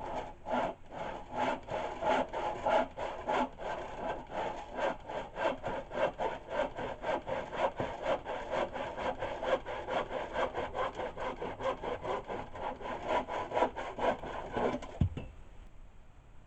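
Hand saw cutting through a wooden board in quick, even strokes, about three or four a second. The sawing stops near the end with a single low thud.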